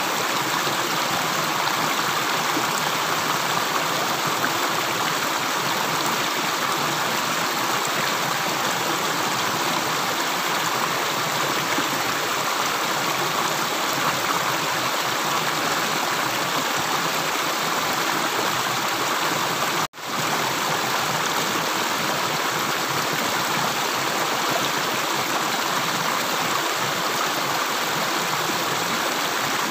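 Steady rushing of flowing water, an even, continuous wash with no separate drips. It cuts out for an instant about two-thirds of the way through, then carries on as before.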